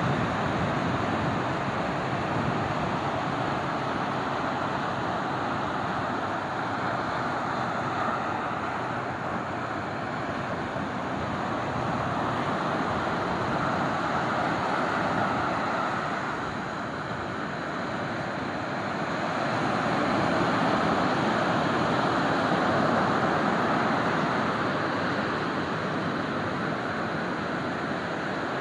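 Ocean surf breaking and washing up a sandy beach, a continuous rush that ebbs and then swells again about two-thirds of the way through.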